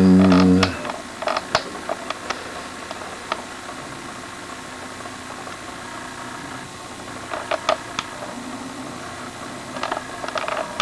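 A brief low hum at the very start, then scattered light clicks and taps, a few in quick clusters, over a steady background hiss.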